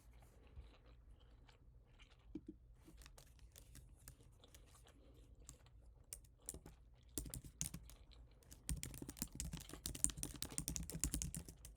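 Typing on a computer keyboard: a few scattered keystrokes at first, then fast, continuous typing from a little past halfway.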